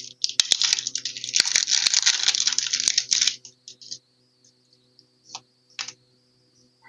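Foil Pokémon booster pack wrapper crinkling and crackling as it is torn open, for about three seconds. Then a few light clicks of handling over a faint steady high whine.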